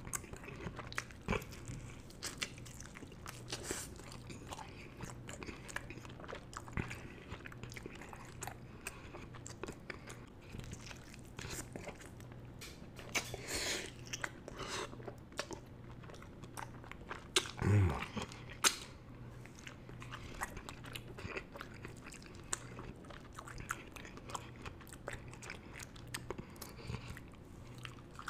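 Close-miked eating of cheese-sauce-covered fried chicken: wet chewing, smacking and crunching of the fried skin as it is bitten. There is a brief louder low sound from the eater about two-thirds of the way through.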